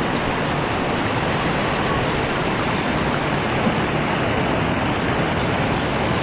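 Steady rushing water: an even hiss that does not let up.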